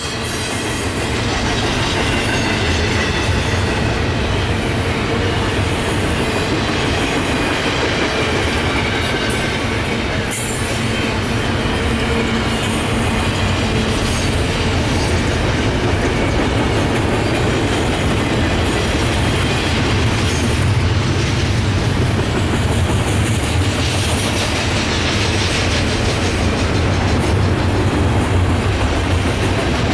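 Double-stack intermodal container cars of a freight train rolling past at steady speed: steel wheels clattering over the rail joints, with a faint thin wheel squeal over the first ten seconds or so.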